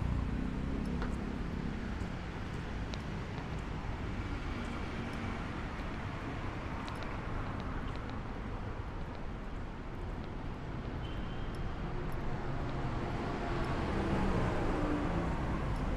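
Road traffic on a busy city avenue: cars passing with a steady engine and tyre hum that swells again near the end.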